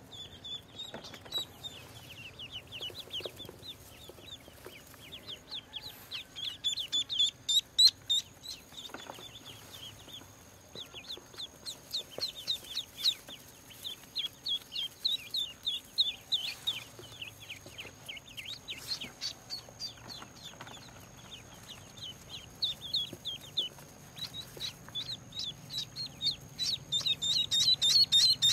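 Several newly hatched ducklings peeping, a dense run of short, high, falling peeps, loudest about seven seconds in and again near the end.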